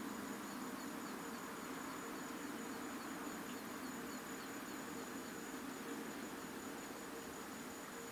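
Steady high-pitched insect trill, with a faint series of short, high chirps repeating about two or three times a second that stop about six seconds in.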